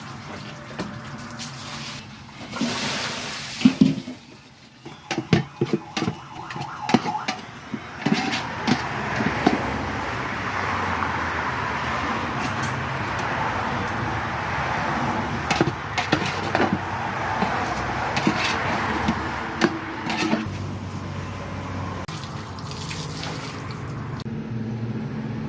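Water running and splashing, with a series of knocks and clatters in the first third.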